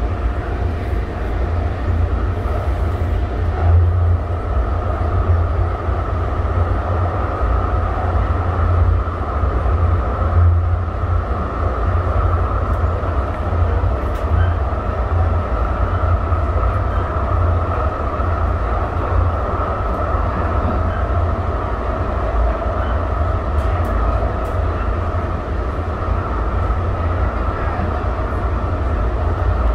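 Inside a Siemens SD160 light rail car running at speed: a steady heavy low rumble from the wheels on the track, with a steady whine above it.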